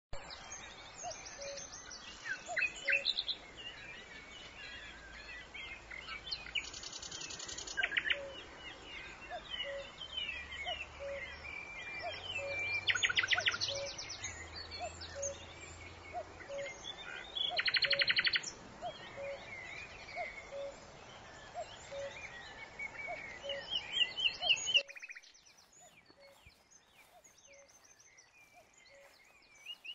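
Woodland birdsong: several birds chirping, with a few fast trills standing out, over a soft outdoor hiss and a faint pip repeating about once a second. About 25 s in the background hiss cuts away abruptly, leaving quieter scattered calls and one more trill near the end.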